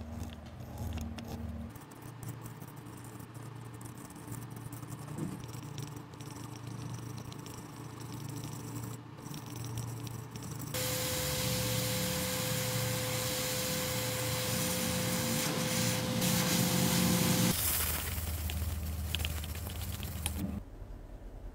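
Steady hiss of rushing air from a small electric blower, with a steady hum, starting about halfway through and stopping after about seven seconds. Before it there are only faint hum and small handling noises of soldering work.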